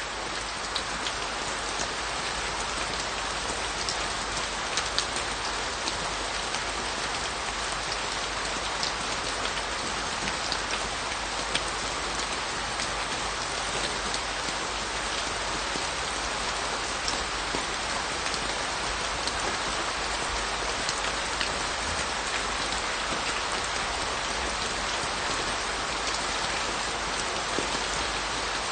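Steady rain falling on a surface, a dense even hiss with scattered sharper drop ticks.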